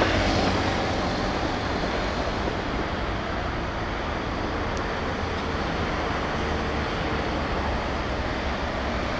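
Steady outdoor background noise, a low rumble with hiss above it and no distinct events.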